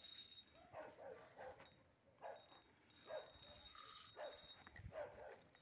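Faint dog barking repeatedly, short barks coming every half second to a second.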